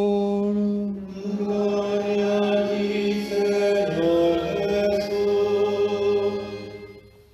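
A single man's voice chanting a sung liturgical acclamation at the close of the Gospel reading, in long held notes: the first held note ends about a second in, and a second phrase follows with a few steps in pitch before fading out near the end.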